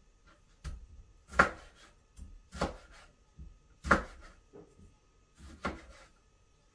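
Slow chopping: five sharp knocks at uneven intervals of about a second, the second and fourth the loudest.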